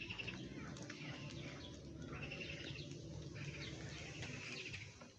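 Small birds chirping in short trilled phrases, several times over, with a steady low hum underneath.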